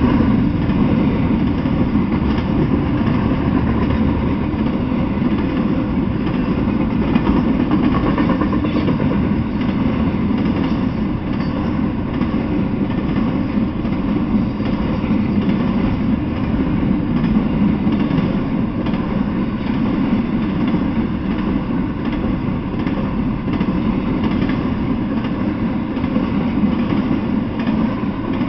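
Intermodal freight train rolling past, its container and trailer cars giving a steady, unbroken rumble of steel wheels on the rails.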